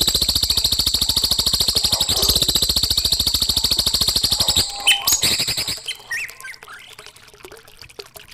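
Recorded songbird call: a fast, high-pitched trill of rapidly repeated notes lasting about four and a half seconds, followed by a few short chirps before it goes quieter.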